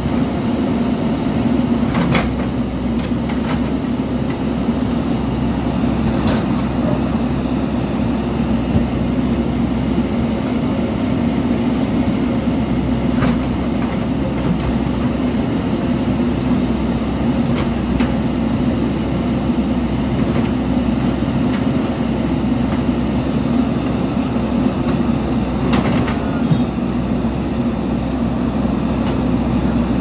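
JCB 3DX backhoe loader's diesel engine running steadily under load as the backhoe arm digs and moves soil, with a few short sharp knocks at scattered moments.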